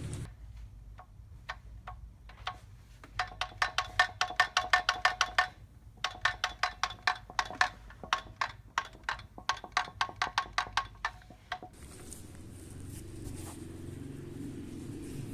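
A damaged manual-transmission gear rocked back and forth on its shaft, making runs of quick metallic clinks with a short ring, about five a second; the clinking is the gear's loose play on the shaft. Near the end the clinks stop and a steady low mechanical running noise takes over.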